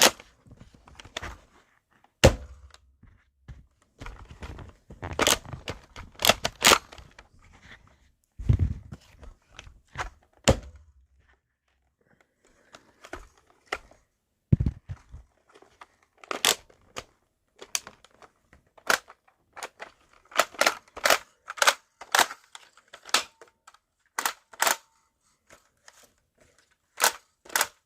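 Irregular sharp clicks and knocks, now and then a dull thump, as of objects being handled and set down.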